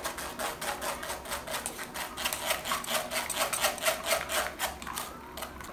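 Metal spoon scraping round a fine stainless-steel mesh strainer, pressing blended apple and mustard-green pulp through to extract the juice: a rapid rasping, about four to five strokes a second, stopping shortly before the end.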